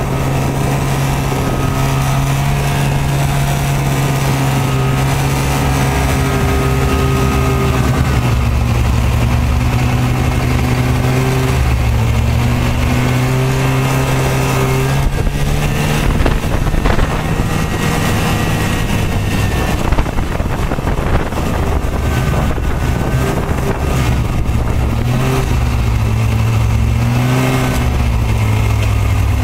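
Engine of the vehicle carrying the camera running steadily as it drives, its pitch dipping and rising as it slows and speeds up.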